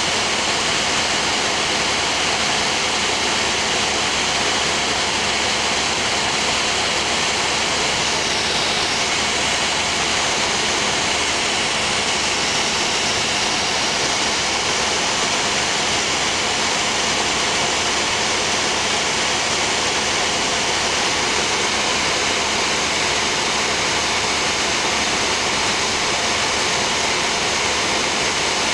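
Steady drone of an aircraft cabin in flight: engine and airflow noise, with a faint hum under it. The fireworks below are too far off to be heard.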